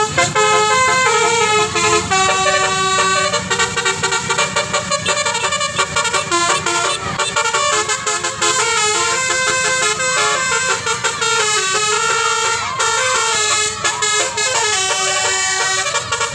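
Bus's basuri telolet horn, a multi-trumpet air horn, playing a fast tune. Its notes jump in pitch in quick steps, with several tones sounding together.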